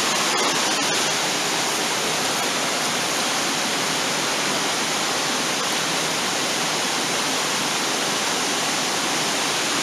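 Waterfall pouring into a creek, a steady, really loud rush of falling water that does not change.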